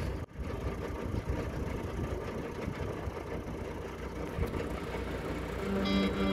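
Narrowboat's diesel engine running steadily at idle. Background music comes in near the end.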